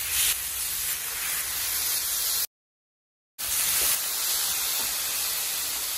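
Diced marinated sirloin and pineapple sizzling in oil on a hot Blackstone flat-top griddle, a steady hiss. The sound drops out completely for about a second midway, then resumes.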